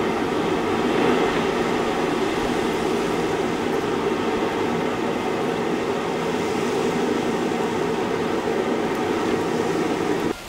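Coal forge fire under a steady air blast, a constant roar and rush of air as the steel heats in the coals; it cuts off suddenly near the end.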